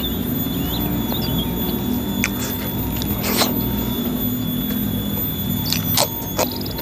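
Close-up eating sounds of a man eating rice and meat with his fingers: chewing with a few short, sharp wet mouth clicks and smacks, the last two as he sucks his fingers near the end, over a steady low hum and faint high squeaky chirps in the first second or so.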